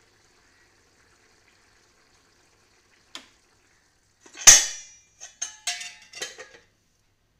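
Metal cookware and utensils clanking: a faint click about three seconds in, then a loud metal clank that rings on, followed by a quick run of lighter clinks.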